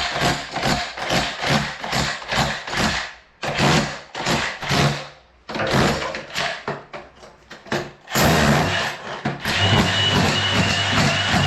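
Rapid strokes of a hand tool working the edge of a concrete floor, about three or four a second, broken by short pauses. About eight seconds in, a power tool or machine starts and runs steadily with a high whine.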